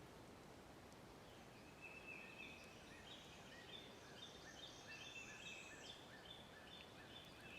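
Faint bird calls over quiet swamp background: a long run of short high chirps, repeating two or three times a second.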